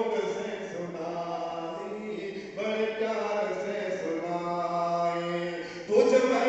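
A man's voice reciting a poem in a slow, sung chant, each phrase drawn out for a few seconds on held notes; a new phrase begins about two and a half seconds in and another near the end.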